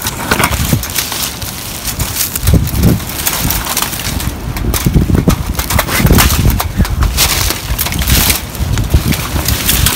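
Dry leaves and twigs crunching and crackling underfoot as people push through brush, with wind rumbling on the microphone.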